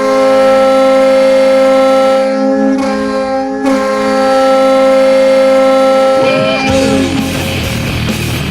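Hockey goal horn blowing one long, loud, steady multi-tone chord, wavering slightly about two and a half and three and a half seconds in. About six and a half seconds in the horn fades as a rock goal song comes in.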